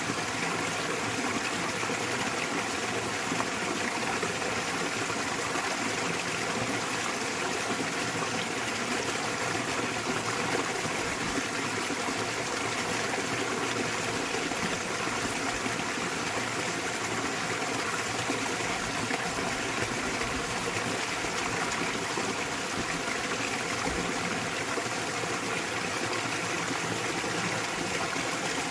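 Small waterfall splashing into a mountain stream, a steady rushing of water.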